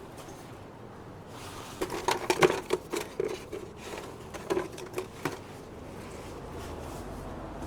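A cluster of light clicks and knocks of small plastic parts being handled, a spare plastic pour spout for a paint can, about two to five seconds in, over a low steady background.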